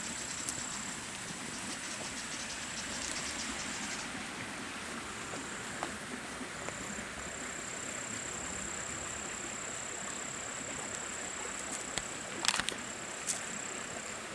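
Insects singing a steady, high-pitched note over a steady hiss, with a short scrape and a few sharp clicks near the end.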